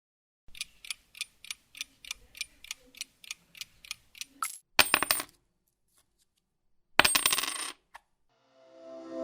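A sound effect of about fifteen light, sharp clinks at roughly four a second, like coins dropped one by one, then a short jingling cluster. After a pause comes a longer jangling burst, and near the end a swelling musical tone fades in.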